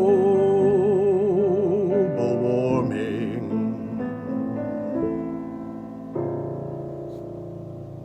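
The end of a song: a singer holds the final note with wide vibrato over piano chords, then the accompaniment plays on. A last chord is struck about six seconds in and rings away, fading.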